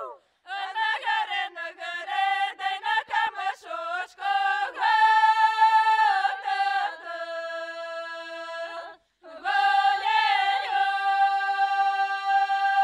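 A group of women singing a Belarusian spring-calling song a cappella, several voices together. Quick short syllables come first, then long held notes, with a brief break for breath just after the middle.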